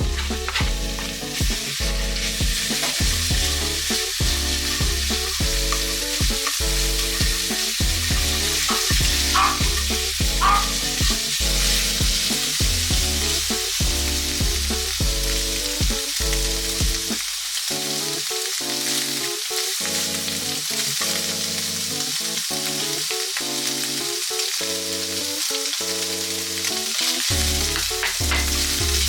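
Food sizzling as it fries in a pan, a steady hiss, over background music with a bass line.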